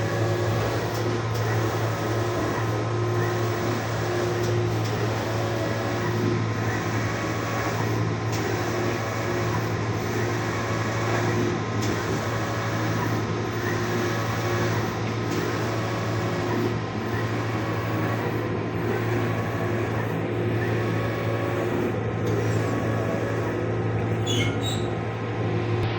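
Printing machine running steadily: a constant low hum with a tone that pulses on and off in a regular machine cycle about every second and a half. A few brief high squeaks come near the end.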